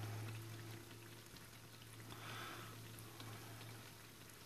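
Doughnuts deep-frying in hot oil: a faint, steady sizzle with fine crackling from the bubbling oil, over a low steady hum.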